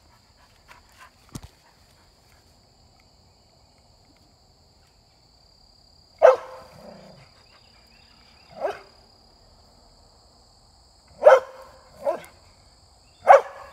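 A dog barking five times at a bobbing fishing cork, his alarm for a bite. The first bark comes about six seconds in, the rest follow a second or two apart.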